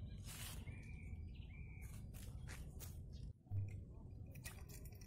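Small birds chirping in short calls over a steady low rumble, with rustles and clicks of handling close by. About three and a half seconds in there is a short dull thump as a float fishing rod is lifted.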